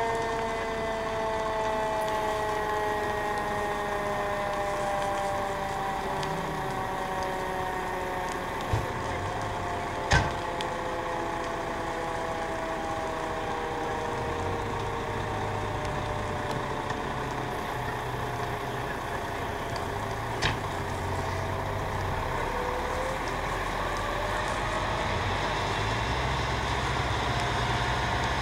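Fire trucks running: a low engine rumble with a whine that falls slowly in pitch for about twenty seconds. There are two sharp knocks close together about a third of the way in, and another one later.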